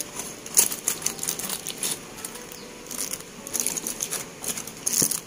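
Aluminium foil crinkling and crackling in irregular bunches as a foil parcel is pulled open by hand.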